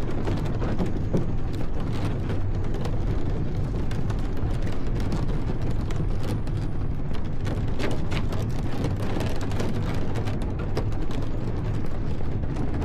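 Wind buffeting the camera's microphone while riding: a steady low rumble with scattered crackles and ticks over it.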